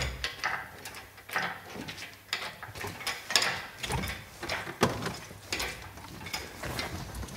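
Irregular metallic clicks and clanks from a hydraulic engine crane and its lifting chain as a car engine is hoisted out of the engine bay.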